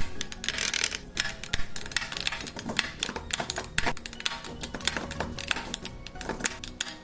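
Many quick, irregular clicks and light knocks from hand tools and metal parts being handled in a workshop, over background music.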